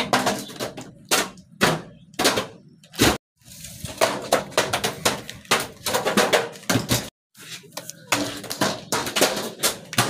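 Bottles bouncing and rolling down stone stairs: a rapid, irregular clatter of knocks and thuds as they hit step after step, broken by a few brief silent gaps.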